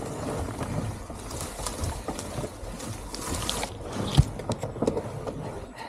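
Rustling and scuffing in the undergrowth as a scooter is hauled backward down a steep bank, with a sharp knock about four seconds in.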